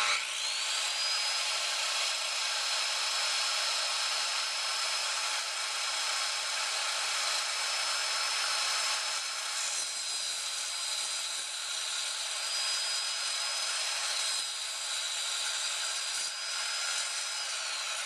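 Table saw running and ripping a fir 2x4. The motor's high whine rises quickly as it starts, then holds steady over the rasp of the blade cutting wood, and drops in pitch near the end.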